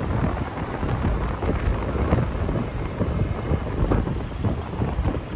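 Wind buffeting a phone's microphone while cycling: a loud, uneven low rumble that swells and dips with the gusts.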